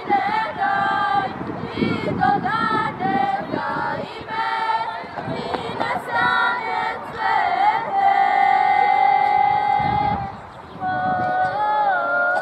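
A group of girls and women singing together, with a long held note ending about ten seconds in; after a short break the singing starts again.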